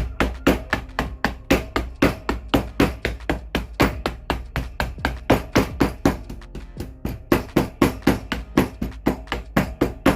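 Hammer striking rapidly and repeatedly, about five blows a second, along a wooden seat frame, knocking upholstery fabric off its staples.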